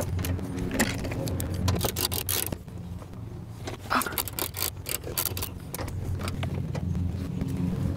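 Hand ratchet with a 10 mm socket clicking in short quick runs as the hood latch bolts are undone, with scattered metal clicks and taps of the tool against the latch.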